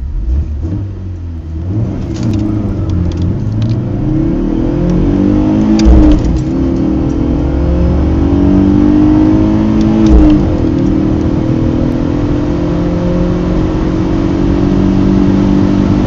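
BMW four-cylinder engine accelerating hard from a standstill, heard from inside the cabin. Its pitch climbs steadily, then drops and climbs again at upshifts about six and ten seconds in.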